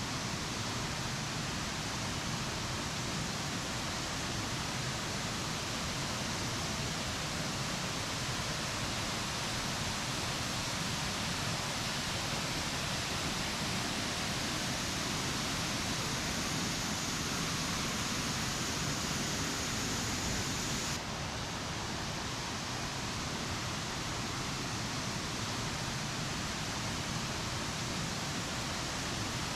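Waterfall rushing: a steady, dense hiss of falling water. About two-thirds of the way through it steps down a little and sounds slightly duller.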